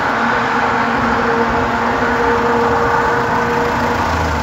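Road traffic on a highway heard from a moving bicycle: a steady rush of passing motor vehicles, with an engine hum held through most of it that drops away near the end.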